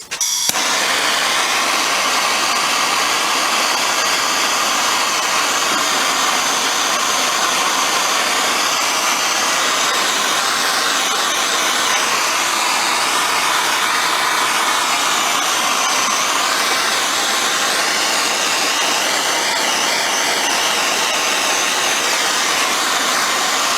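MAPP gas blowtorch burning with a steady loud hiss, starting abruptly at the outset. It is heating the seized top ring of an old Amal carburettor to free it.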